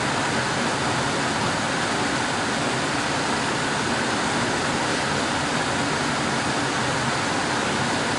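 Air conditioner running, a steady, even whoosh of blown air with no change in level.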